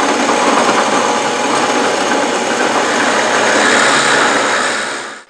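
Drill press running, its bit boring into a walnut block; steady noise that eases off near the end.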